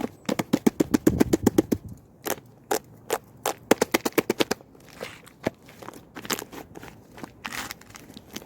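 Two-layer slime being squished and pressed by hand, giving quick trains of sticky pops and clicks, about eight a second, in bursts with short pauses between.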